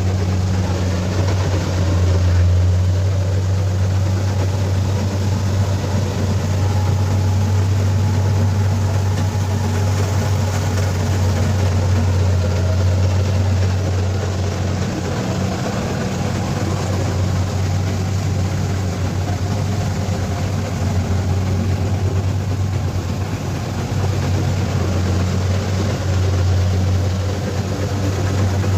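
Kubota DC-70 Plus combine harvester's diesel engine running steadily with its machinery working, a constant low drone with a rushing, mechanical noise over it.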